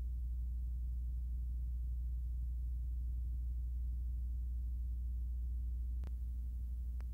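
Steady low electrical hum on an otherwise empty soundtrack, with two short clicks about a second apart near the end.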